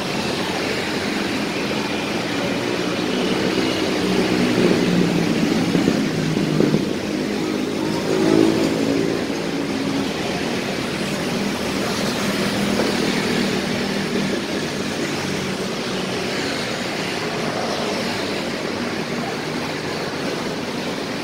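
Road traffic on a city street: motorcycles and cars passing close by, their engines and tyres making a continuous noise. The loudest passes come about four to seven seconds in and again at about eight seconds.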